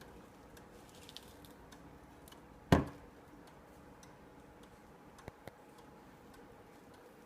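31-day Tempus Fugit mantel clock ticking steadily, about two ticks a second. About three seconds in comes one sharp, loud knock that dies away quickly, and two small clicks follow about two and a half seconds later.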